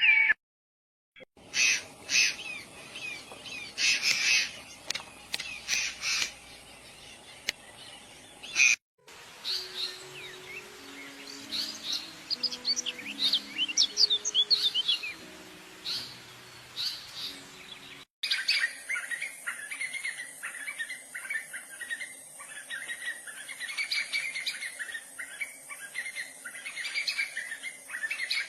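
Birds calling and singing in three sections with sudden breaks between them: first repeated short calls, then a run of quick high chirps, then a dense stretch of song.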